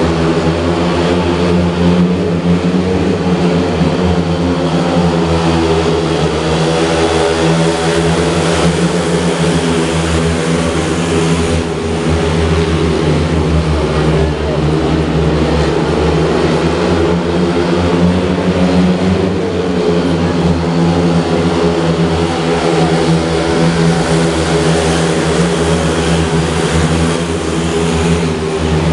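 Speedway motorcycles, 500 cc single-cylinder methanol-burning racing engines, running flat out together as four riders lap the track. A loud, steady blend of several engine notes at once, with no let-up.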